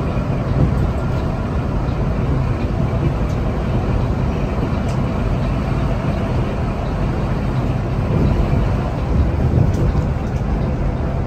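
Inside the cabin of a Mercedes-Benz OH 1626 coach cruising on a highway: a steady drone of the diesel engine mixed with road and tyre noise.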